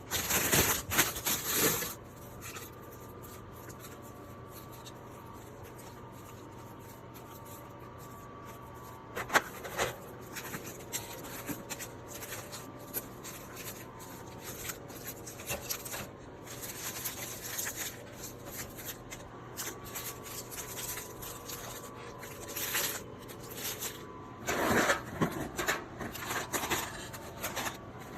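Snack packets and drinks being handled and set in place: plastic wrappers rustling and rubbing, with light knocks and clicks. The busiest handling comes in the first two seconds, about nine seconds in, and again near the end.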